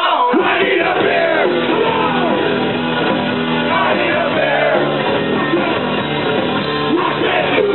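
Punk rock band playing live: electric guitar and drums with shouted vocals.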